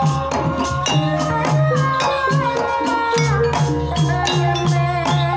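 Javanese gamelan ensemble playing a Banyumasan tayub gending: kendang hand drums struck in a steady rhythm over bronze gongs and metallophones.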